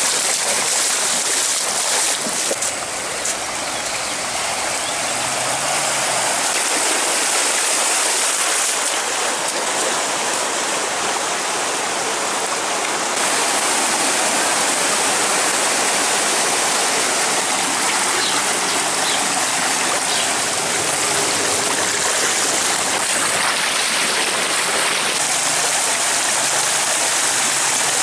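Fast-flowing floodwater rushing and churning steadily, a loud unbroken wash of moving water.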